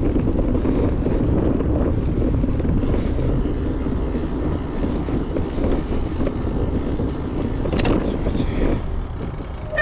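Wind noise on a GoPro Hero 9's microphone on a moving road bike: a steady low rumble.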